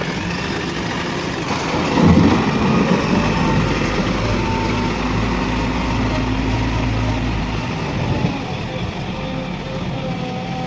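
JCB 3DX Plus backhoe loader's diesel engine running. About two seconds in it rises under load and works hard for several seconds, then eases back to a steadier run.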